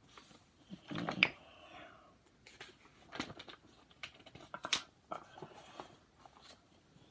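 A paperback picture book being handled: its cover and pages rustling and tapping as it is shut and turned over, with a louder knock about a second in and scattered small clicks.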